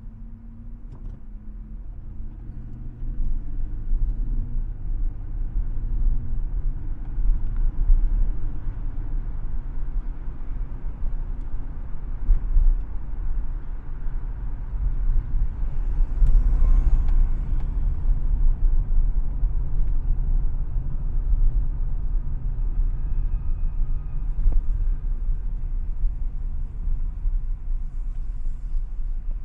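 Car engine and road rumble, growing louder over the first few seconds as the car moves off from a stop and picks up speed, then running steadily.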